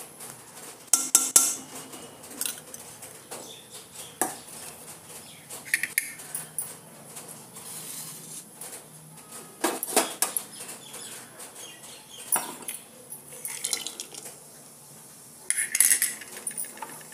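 A metal spoon clinking and scraping against a metal kadhai, in scattered sharp knocks every few seconds, while ghee is spooned in and cashews are added to the pan.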